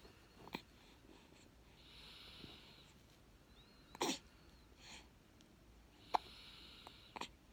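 A baby hiccuping: a few short, sharp hiccups spaced a couple of seconds apart, the loudest about four seconds in, with soft breathing between them.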